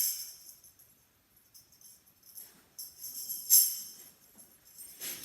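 Tambourine jingles shaken in short bursts: one fading at the start, one peaking about three and a half seconds in, and another starting near the end, with quiet gaps between.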